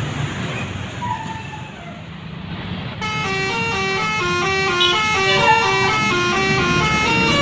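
Road traffic noise, then about three seconds in a bus's telolet horn starts playing a quick melody of short stepped notes.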